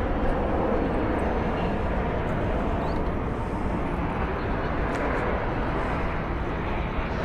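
Steady outdoor background rumble, like distant traffic, with no distinct events.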